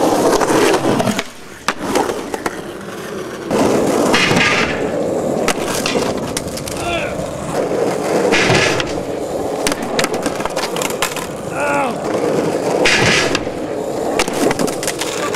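Skateboard rolling on concrete, with repeated sharp clacks of the board and a few short scrapes as a skater works tricks on a low ledge.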